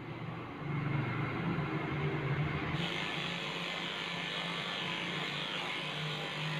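Cordless electric pet hair clipper buzzing steadily as it shaves the body coat of a small dog; the sound turns brighter and hissier about three seconds in.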